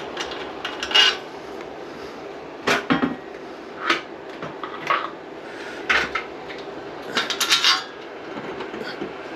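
Hand work on an exhaust fan installation: a series of separate light clinks and knocks of tools and fan parts being handled, roughly one a second, with a quicker cluster near the end.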